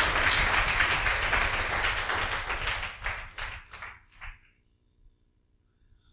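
Congregation applauding, the clapping thinning out and dying away about four seconds in.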